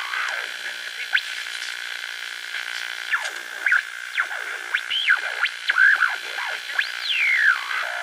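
Old radio being tuned between stations: a steady static hiss with whistling tones that slide up and down, several sweeping down from high to low, every second or so.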